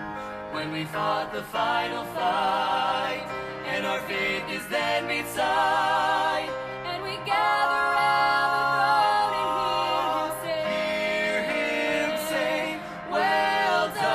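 Gospel song by a vocal trio: voices singing long, held notes with vibrato over instrumental accompaniment.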